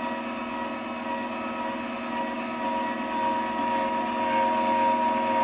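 Stainless steel electric meat grinder running steadily with a constant motor hum, grinding venison and pork fat trimmings.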